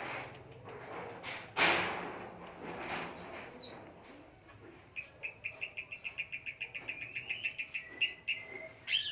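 Long-tailed shrike (pentet) singing: a loud harsh rasping note about a second and a half in, then from about five seconds in a fast run of short chattering notes, about six a second and rising a little in pitch, with brief whistles near the end.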